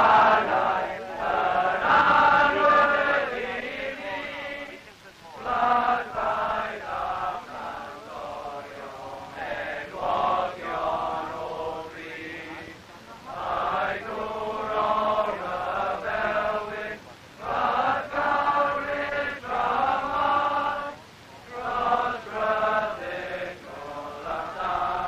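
A group of voices singing a chant-like song together, in short phrases with brief breaks between them.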